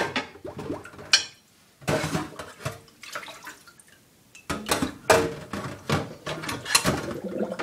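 Dishes clattering as they are handled on a kitchen counter: irregular knocks and scrapes of a glass bowl and crockery, with a quiet pause in the middle.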